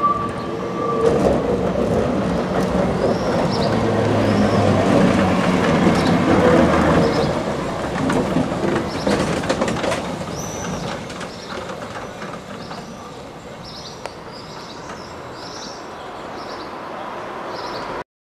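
Vintage Gotha tram passing close by on street track. A steady high wheel squeal from the curve stops about a second in, then the motor hum and rolling wheels grow loudest, with a run of clacks over the rail joints, and fade as the tram moves away. The sound cuts off suddenly just before the end.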